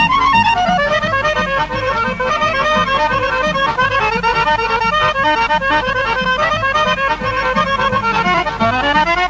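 Bulgarian Thracian folk band music led by accordion, playing fast rippling runs of notes over a steady pulsing bass beat, with a quick rising run near the end.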